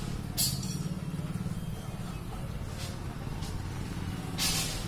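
Steady low rumble of a motor vehicle engine running nearby, with a few brief hissy sounds, the loudest about half a second in and near the end.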